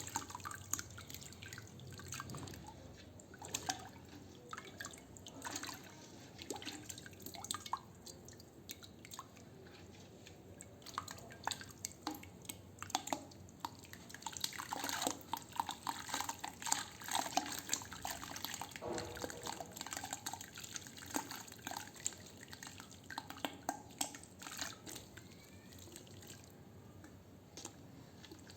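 Dried sand crumbling in water: irregular small crackles, drips and plops.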